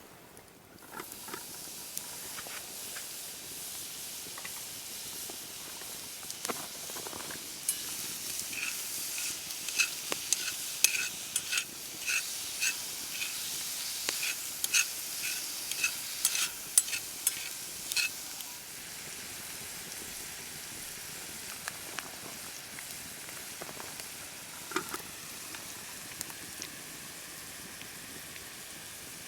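Food sizzling as it fries in a pan. The sizzle starts about a second in, and a run of sharp clicks from stirring comes through the middle.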